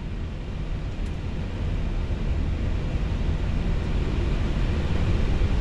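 Airbus A320 cockpit noise: a steady, even rumble of the engines and airflow, growing steadily louder.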